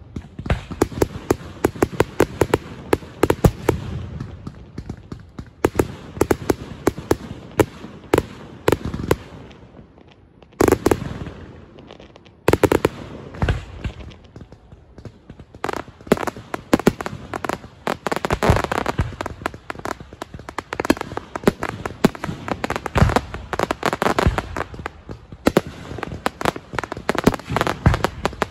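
Barrage of fireworks (Portuguese foguetes): rapid, overlapping sharp bangs and crackling reports. It thins briefly about ten seconds in, then grows dense again.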